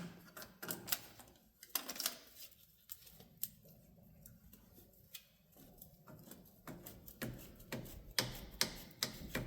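Light, irregular clicks and taps of hands and tools working at a car's oil filter from underneath, coming thicker near the end.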